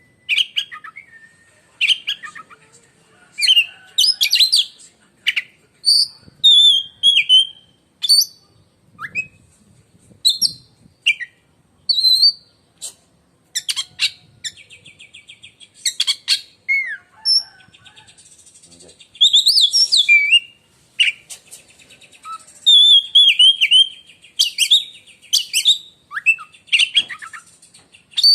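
Oriental magpie-robin singing: a loud, shrill run of short, varied whistled phrases with sweeping notes and buzzy rattles, coming in bursts with brief pauses.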